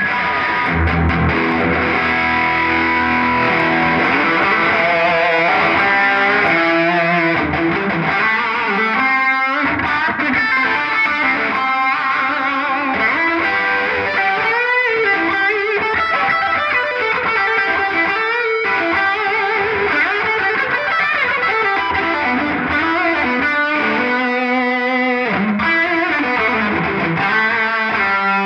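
2019 Gibson Les Paul Classic electric guitar with Zebra humbucker pickups, played through a Fender Deluxe Reverb amp: a lead line of single notes with string bends.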